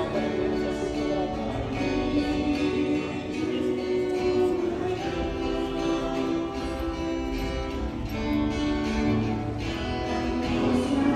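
Slow church music with instruments holding long notes.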